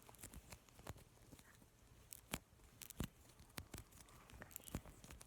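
Faint, irregular crackles and clicks of a small cloud slime mixed with foam beads being handled and squished.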